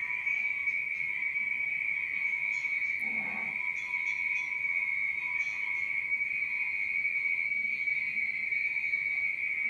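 A steady high-pitched whistling tone holds without a break, with a fainter lower tone beneath it. A brief lower rush comes about three seconds in.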